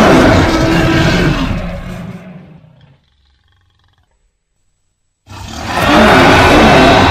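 Sound-designed roar of a fictional hybrid dinosaur, built from layered big-cat, animal and movie-monster roars. One loud roar fades out about three seconds in. After a short silence a second roar starts about five seconds in.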